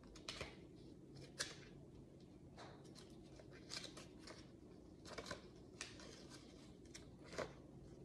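A small paper instruction booklet being handled and its pages turned: several soft, short rustles and page flicks over a quiet room.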